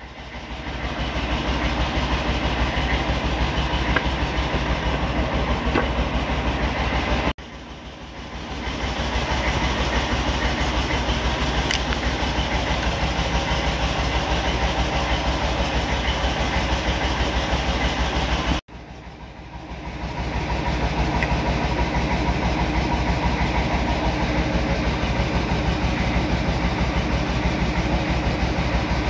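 Steady machine running noise, a rumble with a constant low hum and some clatter. It cuts out sharply twice and swells back in each time.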